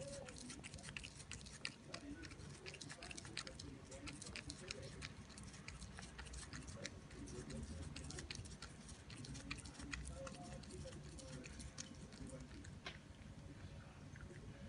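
Cat biting and chewing a slice of raw cucumber: a rapid, irregular run of small crisp crunching clicks.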